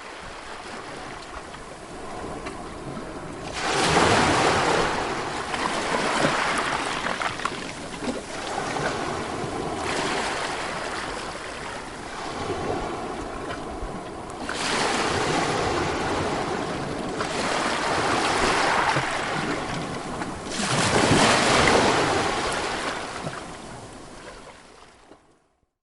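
Ocean waves breaking and washing in on a shore, with four surges about five or six seconds apart and a fade-out near the end.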